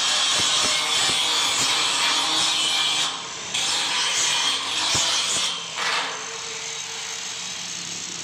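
Electric angle grinder grinding steel, a loud steady hiss that breaks off briefly twice and then goes on more quietly.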